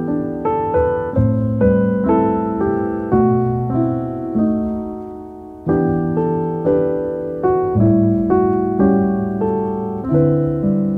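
Background solo piano music, unhurried notes each struck and left to fade. The playing thins to a single fading chord about five seconds in before the melody resumes.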